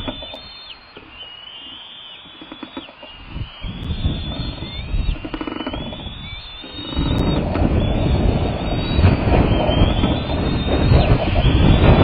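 Strong wind buffeting the nest-cam microphone with a low rumble, easing early on and turning heavier from about seven seconds in. Over it, a bald eaglet gives high, thin whining calls that rise and fall again and again.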